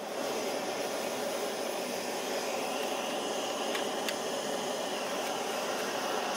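Small canister gas stove burner running with a steady hiss, just after being lit. About four seconds in, two light clinks as an aluminium mess tin is set on the pot supports.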